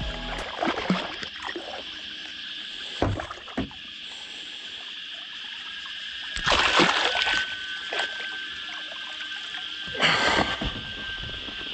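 A hooked golden dorado thrashing and splashing at the surface beside a boat hull, in two loud bursts about six and a half and ten seconds in, with a few knocks earlier. A steady high insect drone runs underneath.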